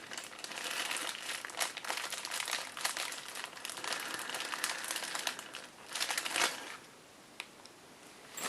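Crinkling of packaging being handled, likely a bag of spare parts, steady for about six seconds, then quieter, with one sharp click near the end.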